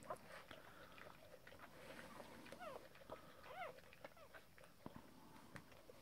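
Newborn bull terrier puppies giving a few faint, thin squeaks, two clearest around the middle, with a few soft clicks.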